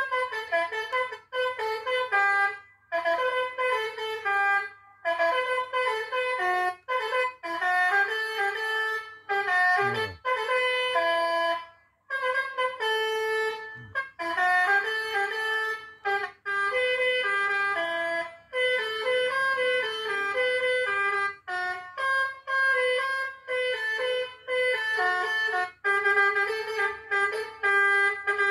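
Electronic 'Basuri' telolet horn playing its multi-note tune: a fast run of short and held horn notes in melodic phrases, with brief breaks between them.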